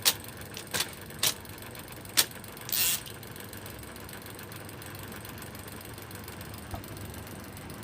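IBM Selectric III electric typewriter mechanism: four sharp clicks in the first two seconds or so, a short rasp near three seconds, then the machine's motor running steadily.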